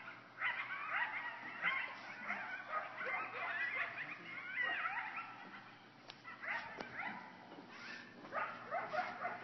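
A pack of coyotes howling and yipping together, many high wavering and falling calls overlapping. The chorus thins out about halfway through, with a few more short bursts of yips near the end.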